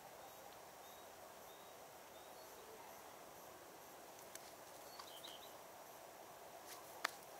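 Near silence with a faint steady hiss and a few faint high chirps. Small clicks of fishing tackle being handled while the rig is readied, the sharpest and loudest about seven seconds in.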